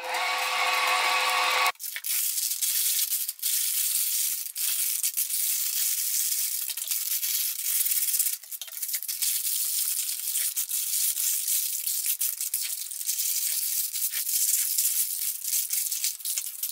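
A Starwind stand mixer's motor whining steadily as it kneads dough, cutting off abruptly under two seconds in. Then baking parchment rustling and crinkling as it is handled and cut with scissors, with many short sharp crackles.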